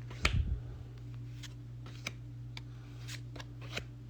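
Pokémon trading cards being handled and flipped through: a dull thump about a quarter second in, then a scatter of short card clicks and flicks, over a steady low hum.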